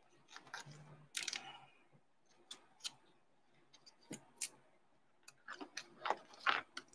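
Trading cards and their packaging being handled, heard as a scatter of faint clicks and taps, with a short rustle about a second in and a denser run of clicks near the end.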